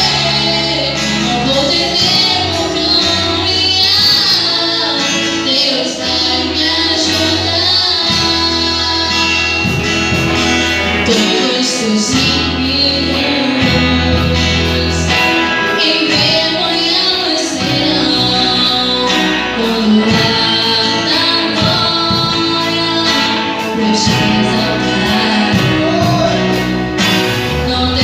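Christian worship band music: female voices singing over guitar and sustained bass notes.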